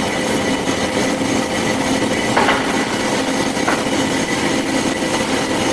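Industrial band saw running steadily: a dense, even machine noise with a faint steady hum, and two short sharp sounds about two and a half and three and a half seconds in.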